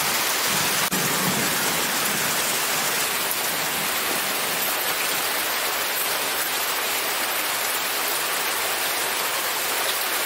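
Heavy rain falling steadily, an even hiss of a downpour.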